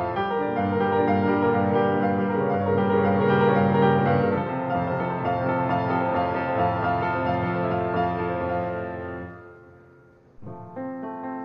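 Piano music of slow, held chords. The sound fades away about nine and a half seconds in, and a new chord sounds about a second later.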